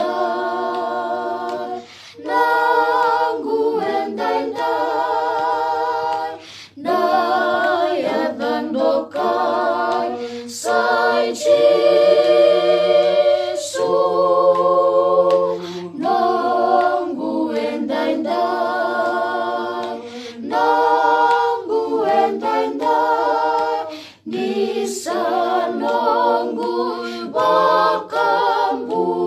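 Small family group of children and adults singing a Fijian song a cappella together, with no instruments, in long held phrases with brief breaths between them.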